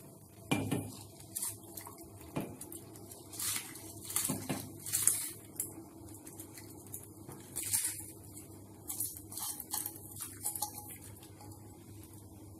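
A steel spoon clinking and scraping against a steel pot at irregular moments as soaked rice is tipped into boiling water and stirred. A steady low hum of the boiling pot runs underneath.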